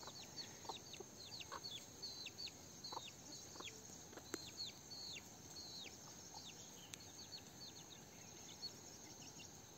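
A young chick peeping faintly and over and over, short high calls that fall in pitch, about two or three a second, thinning out after about seven seconds. Now and then there is a soft low cluck from the hens.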